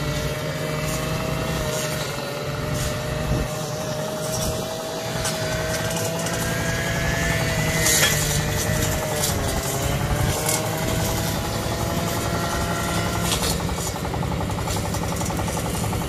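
Engine-driven brush cutters running at high speed as weeds are cut, a steady engine whine that wavers in pitch and dips briefly about two-thirds of the way through before picking up again. A short sharp tick sounds around the middle.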